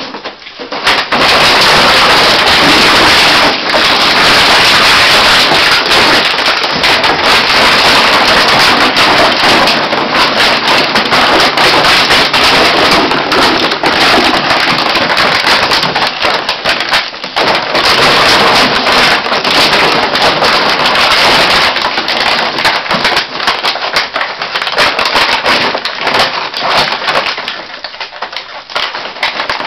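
Empty plastic drink bottles crackling and crunching loudly and without let-up as two dogs wrestle on a heap of them, with a brief lull about 17 seconds in and a softer stretch near the end.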